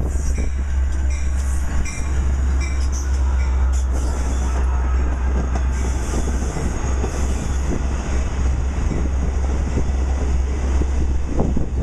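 A Long Island Rail Road DM30AC dual-mode diesel locomotive passing close by at speed, followed by its bi-level coaches rolling past. A heavy, steady rumble with scattered knocks from the wheels and faint high tones.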